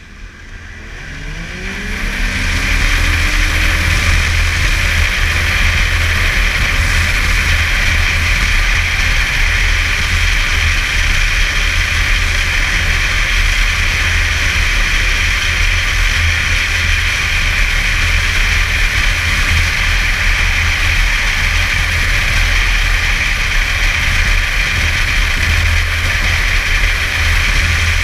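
Snowmobile pulling away, its engine note rising over the first two seconds, then running steadily at trail cruising speed.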